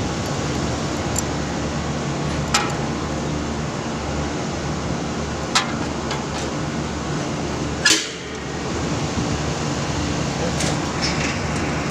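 Condenser fan motors of a Koppel air-conditioning unit running steadily, a hum with a rush of air. Three sharp clicks come about 2.5, 5.5 and 8 seconds in, the last the loudest. The technician says the fan runs in reverse and needs a new capacitor.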